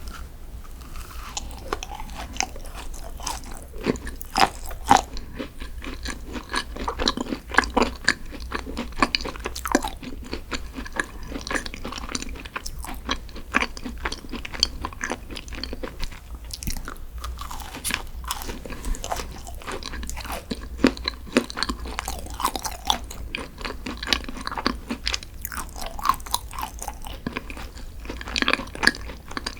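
Close-miked chewing and biting of green tea desserts: a dense run of small crisp crackles and clicks, with a few louder crunchy bites.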